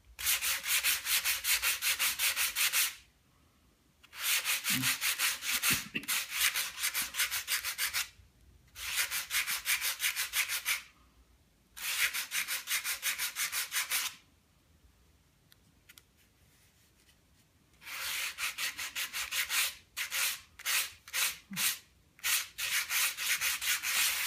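Sandpaper rubbed back and forth over a model glider wing near the tip, in quick even strokes. The strokes come in runs of a few seconds, with a pause of about four seconds in the middle; the last run has more separate strokes.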